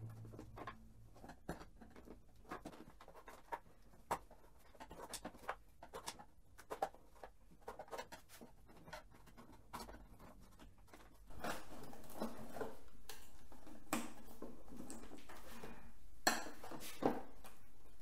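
Scattered clinks and knocks of tools and small hardware as a Harley-Davidson Tour-Pak luggage box is taken apart. The background gets louder about eleven seconds in.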